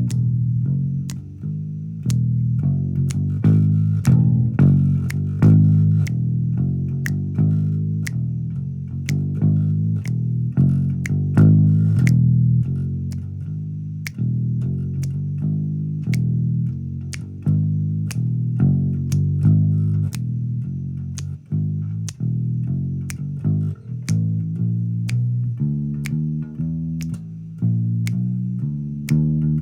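Instrumental music: a low, bass-guitar-led riff of changing notes over a steady ticking beat.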